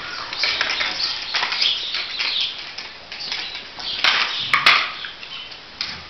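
Dogs and puppies scuffling and play-wrestling, with short high squeaks and a few sharp clicks about four to five seconds in.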